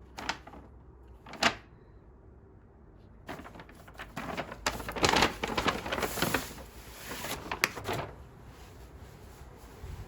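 Packaging being handled close by: a few sharp clicks or knocks, then several seconds of rustling with clicks in it, loudest near the middle.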